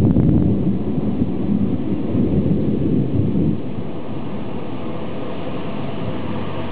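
Thunder rumbling loud and low, dying away about halfway through and leaving a steady hiss of background noise.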